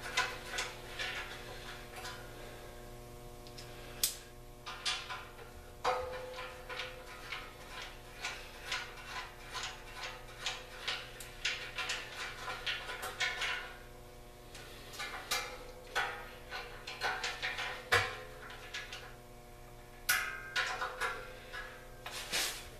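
Screws being run into the metal handle mounts of an air compressor with a driver bit: bursts of quick clicking and ticking with occasional metal knocks, the loudest knock about three quarters of the way through. A faint steady hum runs underneath.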